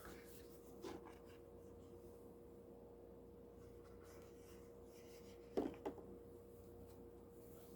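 Quiet handling of a hard cardboard tarot box and its contents: soft rubbing and a few light knocks, the clearest a quick double knock about five and a half seconds in, over a steady faint hum.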